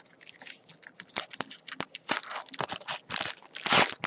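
Gold foil wrapper of a trading card pack crinkling and being torn open by hand. It makes a run of irregular crackles, and the loudest rip comes near the end.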